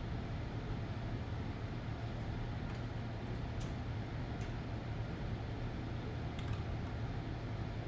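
Steady low hum and hiss of a running fan in a small room, with a few faint light clicks scattered through the middle.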